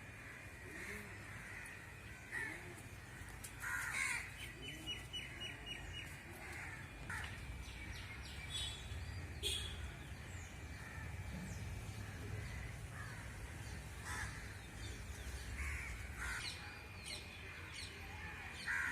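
Crows cawing now and then, with smaller birds chirping, including a quick run of short high notes about four to six seconds in.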